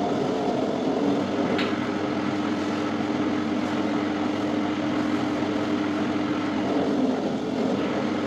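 Electric dough sheeting machine for samosa sheets running, a steady motor hum from its rollers as dough is fed through. A brief click about one and a half seconds in.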